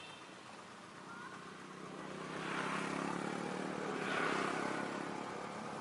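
Off-road 4x4 vehicle engine running, getting louder about two seconds in and swelling twice.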